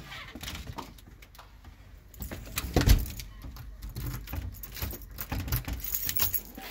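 Irregular clicks, rustles and knocks of a person going out through a door and walking with a hand-held camera. The loudest knock comes about three seconds in.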